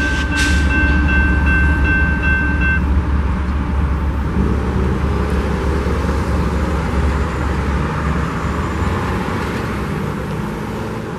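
Freight grain train rumbling steadily as it moves away from the crossing, fading after about eight seconds. The crossing warning bell rings for the first few seconds, then stops as the crossing clears and the gates lift.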